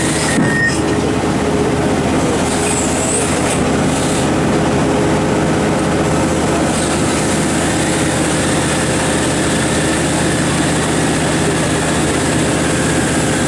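Komatsu PC4000 mining excavator running, a loud, steady engine hum. A high steady warning tone breaks off within the first second.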